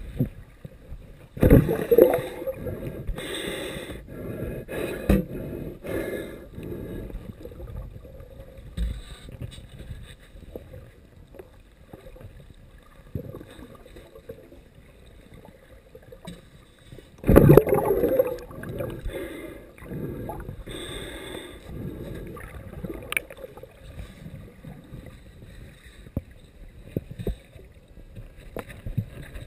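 Underwater sound of a metal sand scoop being worked into a sandy bottom, with irregular crunching and scraping. Two loud gurgling bursts of bubbles come about a second and a half in and again about seventeen seconds in, each dying away over a couple of seconds.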